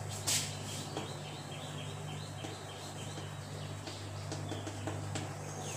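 Chalk writing on a blackboard, heard as a few light taps, over a steady low hum. A quick series of faint high chirps is heard early on.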